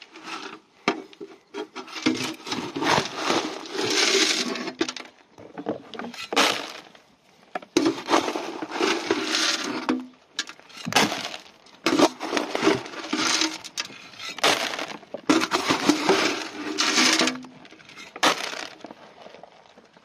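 Dry compound sheep feed poured from a galvanized metal bucket into plastic feed tubs, rattling and clattering in about half a dozen bursts of one to three seconds each.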